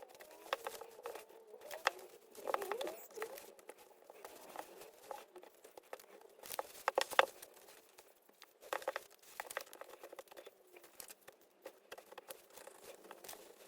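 Scattered light clicks, taps and crackles of plastic pry tools and handling on a tablet whose glued-on screen is being worked loose, the loudest click about seven seconds in.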